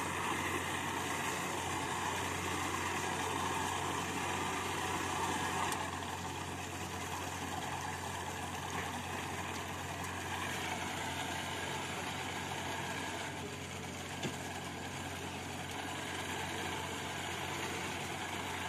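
Boat engine idling steadily, a constant low hum under a wash of engine and sea noise.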